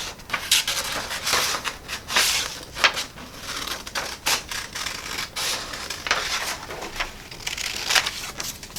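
Scissors cutting a printed paper sheet: a series of irregular snips with paper rustling in between.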